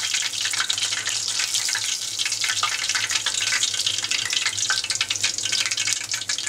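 Tempura oil sizzling in a deep pot with a steady, dense crackle of fine pops.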